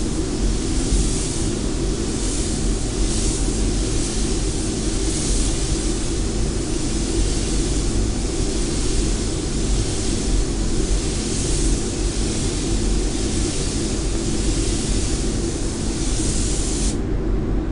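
Gravity-feed paint spray gun hissing as it sprays, the hiss swelling about once a second with each pass, over the steady rumble of a paint booth's ventilation. The hiss stops near the end while the rumble carries on.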